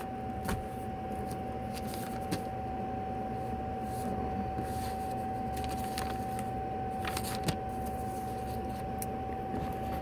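Camper air conditioner running on low: a steady hum with a constant high tone. Papers are shuffled and rustled over it, with a few short sharp crinkles.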